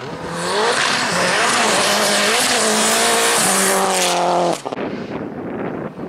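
Rally car engine at full throttle on a gravel stage, its note climbing and dropping through several gear changes, over a loud hiss of tyres and stones. It cuts off abruptly about four and a half seconds in.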